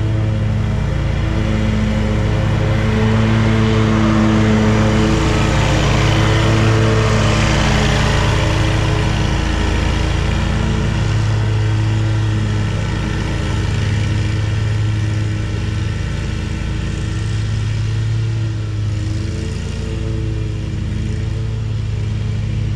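Hustler zero-turn mower's engine running steadily under load while mowing, with the cutting deck's rushing noise swelling and fading around the middle as the mower passes near.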